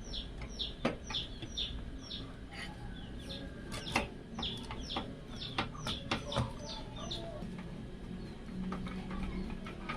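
Birds calling with many short chirps in quick succession, mixed with scattered sharp clicks and knocks, over a low steady hum.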